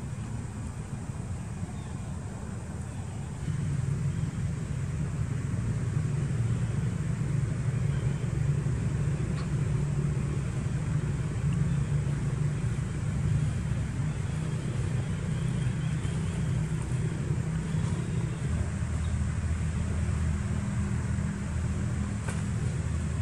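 Steady low engine rumble, getting louder about three and a half seconds in, with a deeper hum joining near the end.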